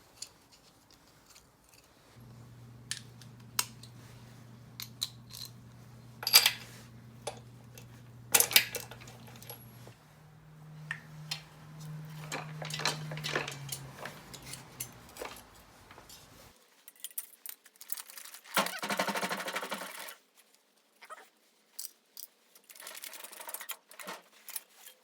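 Metal engine parts and hand tools clinking and clicking as an air-cooled VW engine is taken apart, with a low steady hum under the first two-thirds that shifts pitch about halfway, and a short rasping burst near the end.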